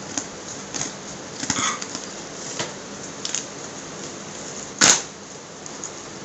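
A taped cardboard parcel being opened by hand: a few short crackles and snips of scissors, paper and packing tape, then one loud sharp tear about five seconds in as the flaps are pulled open.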